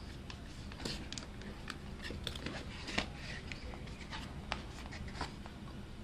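A charger's retail packaging being handled and opened: scattered light clicks, scrapes and rustles of cardboard and plastic, a few sharper ticks among them.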